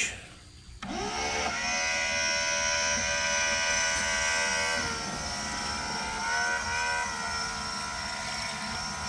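A 12-volt electric water pump switching on about a second in, spinning up and then running with a steady whine that drops a little in pitch about halfway through. It is sucking air while it primes.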